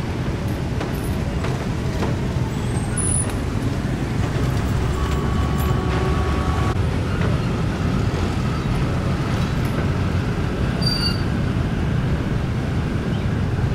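Steady low engine rumble of motor vehicles or vessels.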